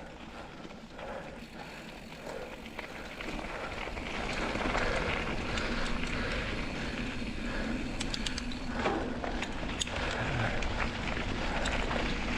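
Kona mountain bike ridden along a dirt trail: tyres rolling and the bike rattling, getting louder from about four seconds in as it picks up speed, with a few sharp clicks about eight seconds in.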